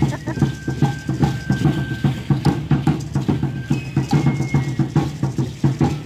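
Drum beating a steady quick rhythm for Aztec-style dancing, with the rattling of the dancers' seed-pod ankle rattles.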